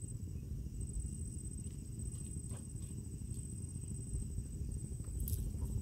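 Wind rumbling on the microphone in open country, with a faint steady high-pitched whine and a few faint ticks.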